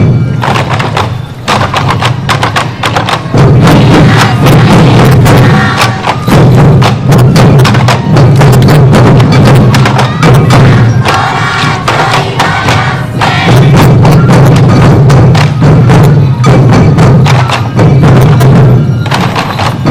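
Many waist-slung sansa taiko drums beaten together by a marching parade troupe: a dense, loud, driving drumbeat with a deep boom from the drum heads and sharp clacks of strikes, dipping briefly now and then.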